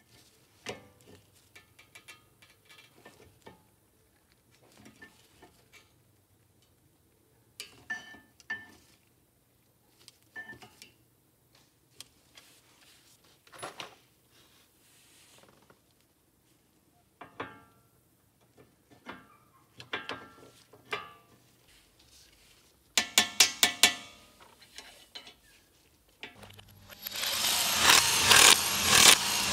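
Scattered metal clicks and clanks as front brake pads are handled and fitted into a caliper. Near the end comes a short rattling burst, then an impact wrench hammering loudly as it runs the wheel's lug nuts on.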